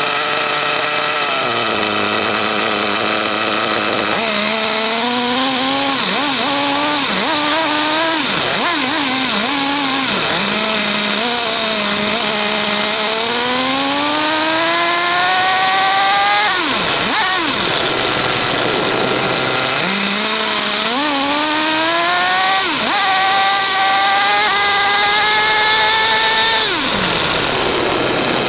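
Small 3.5 cc (.21) nitro engine of a 1/8-scale RC truck, running at idle, then revving under throttle. Its buzzing pitch climbs steadily as the truck accelerates and falls back sharply when the throttle is released, twice in long pulls and with shorter blips between.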